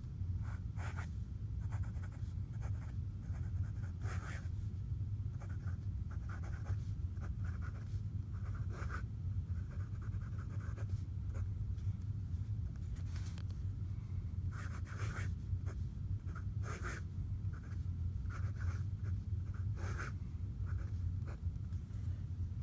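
Nib of a Pilot Vanishing Point retractable fountain pen scratching across lined paper in short, irregular strokes as cursive is written, over a steady low hum.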